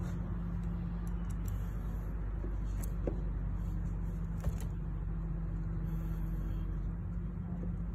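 A steady low hum with a constant pitch, and a couple of faint clicks from a screwdriver turning a screw in the seat rail of a rowing machine.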